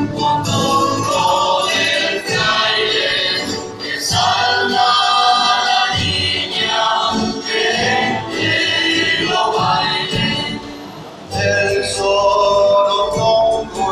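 Live Canary Islands folk music: a group of voices singing together over strummed guitars, with a short lull about ten seconds in.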